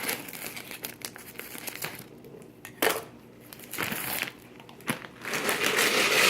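Crinkling and rustling handling noise with a few sharp knocks, then a louder hissing rush that builds near the end.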